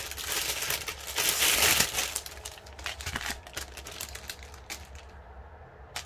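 Clear plastic wrapping crinkling as bundled packs of diamond-painting drill bags are unwrapped by hand. It is loudest about one to two seconds in and dies away near the end.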